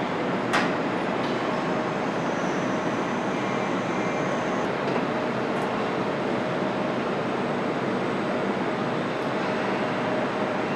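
Steady mechanical din of a car assembly plant, an even rushing noise with a faint hum, and one sharp click about half a second in.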